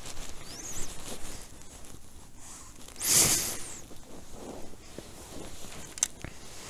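Close rustling handling noise, with one loud swish about three seconds in and a sharp click near the end.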